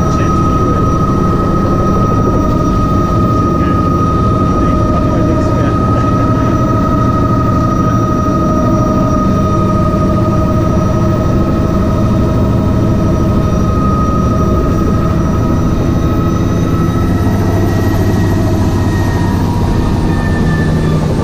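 Bell 206B JetRanger III helicopter heard from inside the cockpit: the Allison 250 turbine's steady whine over the low, fast thrum of the rotor. From about 17 seconds in, the whine falls slightly in pitch and fades, as the turbine is brought down.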